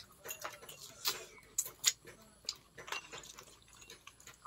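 Several people eating by hand: wet lip smacks and chewing clicks, an irregular scatter of short sharp mouth sounds.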